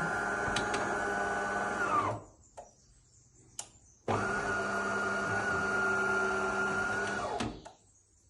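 Motor inside a DeLonghi bean-to-cup coffee machine running with a steady whirr, then falling in pitch as it winds down about two seconds in. A couple of clicks follow, then the motor runs again for about three seconds and winds down once more.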